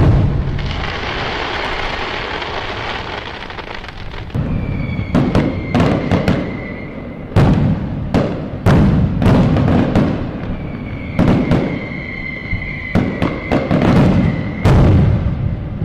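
Fireworks going off: a few seconds of dense crackling, then steady high whistles from whistling rockets and a run of sharp bangs and booms.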